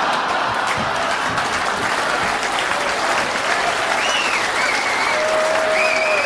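A large hall audience applauding after a punchline, steady clapping throughout, with a few high whistling tones from about four seconds in.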